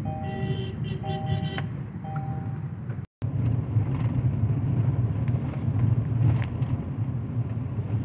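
Car driving, with a steady low rumble of engine and road noise inside the cabin. For the first three seconds a two-tone beep repeats about once a second, then the sound cuts out briefly and the rumble carries on.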